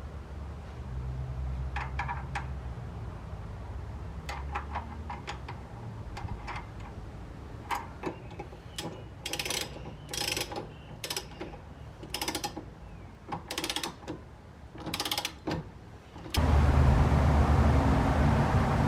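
Hand ratchet wrench clicking in short strokes while tightening a nut on the front suspension, with scattered metal clinks before it. Near the end a loud steady rumble cuts in abruptly.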